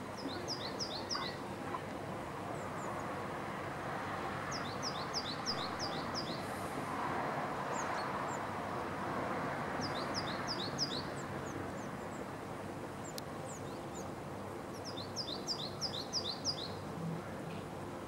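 Male great tit singing its two-note 'teacher-teacher' song: four short bursts of quickly repeated high-low note pairs, about four to five seconds apart, over steady background noise.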